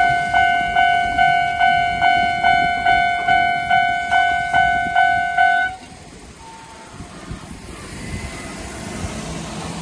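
Japanese railway level-crossing alarm ringing its standard electronic bell tone at a fast tempo, about two and a half strikes a second. It cuts off about six seconds in, once the crossing is clear, leaving only faint background noise.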